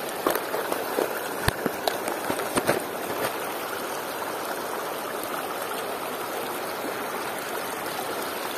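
Steady flowing river water, with a few sharp clicks in the first few seconds.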